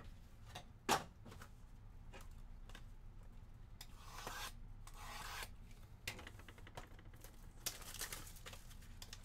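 A sealed trading-card hobby box being handled and its shrink-wrap slit with a green-handled cutter. A sharp knock comes about a second in, then light handling clicks. Rasping scrapes of the blade through the plastic come around four to five and a half seconds in, with more plastic rustling near the end.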